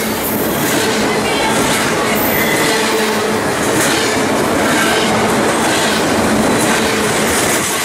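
Double-stack container cars of a freight train passing close by at speed: a steady, loud rush of wheels on rail with faint squealing tones from the wheels.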